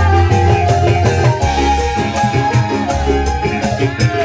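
Live dangdut band music playing loudly: a steady beat over a deep bass line, with melodic keyboard lines and quick regular percussion ticks.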